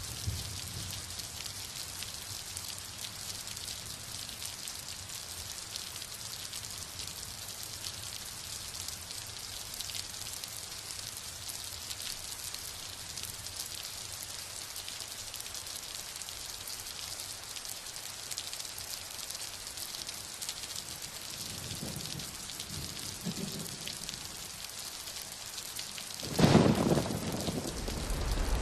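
Steady rain falling, an even hiss, with a sudden loud low rumble about three-quarters of the way through that fades over a second or two.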